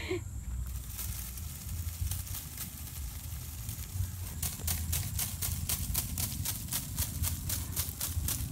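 Wind rumbling on the microphone. From about halfway through comes a fast, even run of crisp crackling clicks, several a second.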